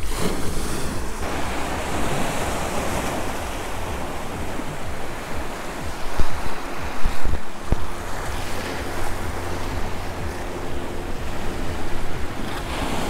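Small ocean waves washing over a shallow rocky shoreline, with wind buffeting the microphone.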